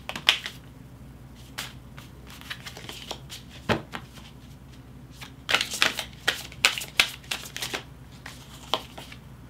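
A deck of tarot cards being shuffled and handled by hand: irregular soft card flicks and snaps, with a quicker run of them from about halfway through.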